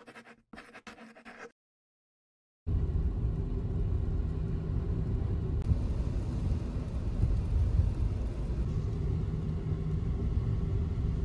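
Steady low vehicle rumble, beginning abruptly about three seconds in after a few faint brief sounds and a moment of silence.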